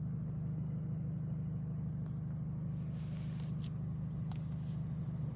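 Steady low hum, with a few faint light clicks.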